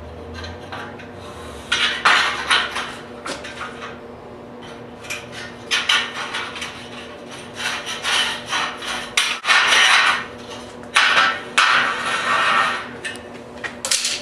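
Hand metal snips cutting a sheet-metal Z-closure strip to length: a run of short, irregular metallic snips and scrapes, with the strip rattling as it is handled. A steady low electrical hum runs underneath.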